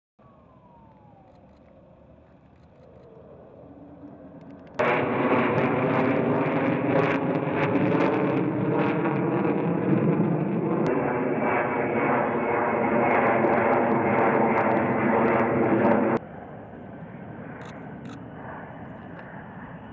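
F-35B Lightning II fighters' F135 jet engines. The jet noise is faint at first, jumps suddenly to loud about five seconds in, and drops sharply to a moderate level about sixteen seconds in.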